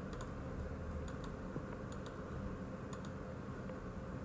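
Light clicking at a computer, four quick double clicks about a second apart, over a steady low hum from the recording setup.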